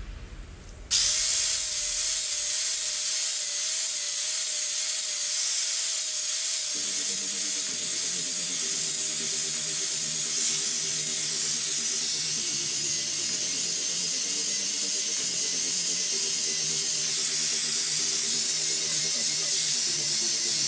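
A loud, steady hiss that switches on suddenly about a second in and keeps going, over background music.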